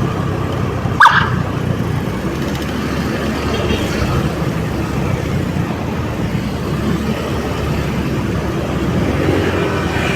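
Steady road and engine noise from a moving vehicle, with one short, loud toot about a second in.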